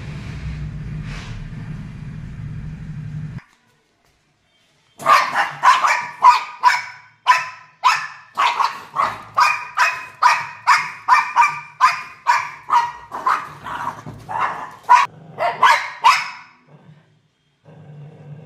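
A dog barking quickly and over and over, about two to three barks a second for around eleven seconds, starting about five seconds in. Before it, a steady low hum cuts off abruptly.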